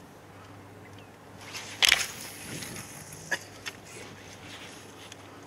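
Casting with a spinning rod and reel: one sharp swish about two seconds in, a fainter hiss as line runs off the spool, then two short clicks from the reel. A low steady hum runs underneath.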